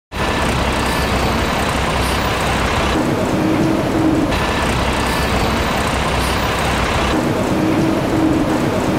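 Escalator running: a steady mechanical noise from the moving steps and drive. The sound changes abruptly about three seconds in, switches back a second later and changes again near seven seconds, with a pulsing hum in the changed stretches.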